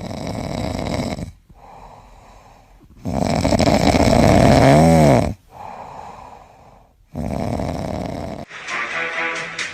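A sleeping animal snoring: three long, loud rasping snores about two seconds apart, each followed by a quieter breath, one with a rising and falling wheezy tone in the middle. Music comes in near the end.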